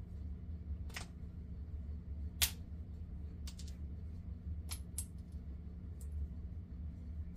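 Small metal parts of a baitcasting reel clicking and clinking as they are handled and set down: about seven separate clicks, the sharpest about two and a half seconds in, over a steady low hum.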